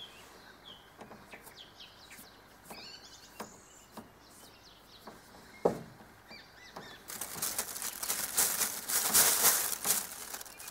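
Birds chirping in the background, with a sharp knock about halfway through. Then, for the last few seconds, a loud crackling rustle as possum fur is plucked and handled into a plastic bag.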